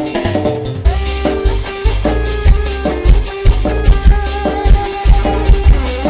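Music with a drum kit and a heavy bass beat; the sound fills out with bright upper parts about a second in.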